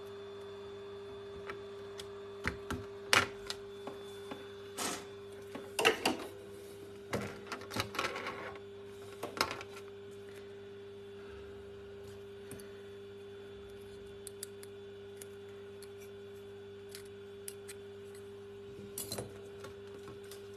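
Scattered clicks and taps of plastic laptop parts and tools being handled during disassembly, busy for the first ten seconds or so and then sparse, over a steady low hum.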